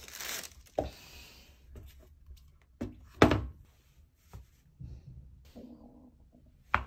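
Tissue paper rustling in a shoebox as new sneakers are lifted out, then a few sharp knocks and thunks of the shoes being handled and stepped on a wooden floor, the loudest a little past three seconds in.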